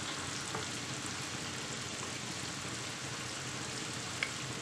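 Chopped onion, garlic and chorizo frying gently in oil in a terracotta casserole: a low, steady sizzle.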